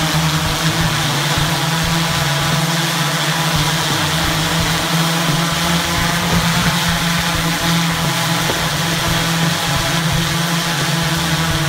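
Manned multirotor's many propellers and motors running in a steady hover, a continuous droning whir with a strong low hum.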